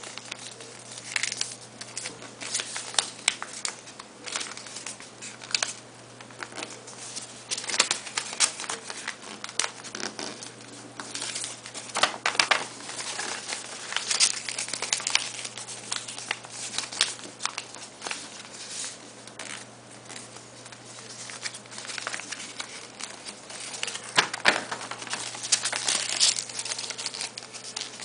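A sheet of paper being folded and creased by hand into a paper airplane: irregular rustling and crinkling, with sharp crackles as folds are pressed flat.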